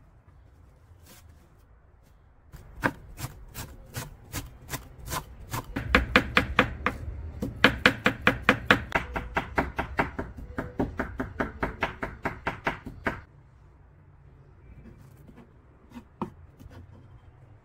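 Knife chopping fresh parsley on a wooden cutting board. It starts about two and a half seconds in with slow strokes, about three a second, then speeds up to rapid, louder chopping of about five a second. It stops suddenly a few seconds before the end, leaving a couple of light taps.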